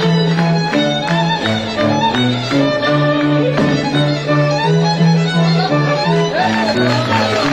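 Goral folk string band playing a dance tune: fiddles carry the melody over a bowed cello bass line.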